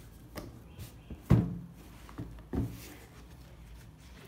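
Handling noise from sneakers being moved about on a cardboard shoebox: a few light taps, a sharp thump about a second and a half in, and a smaller thump a little later.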